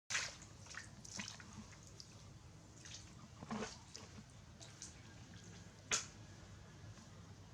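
Water splashing and dripping in a small bath tub as a pet is washed in warm water, with a few short splashes among lighter drips, the loudest about six seconds in.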